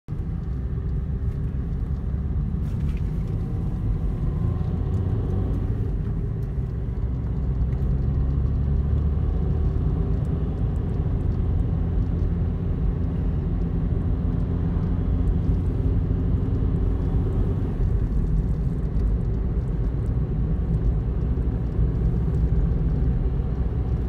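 Steady low rumble of a car driving on the road, engine and tyre noise heard from inside the cabin.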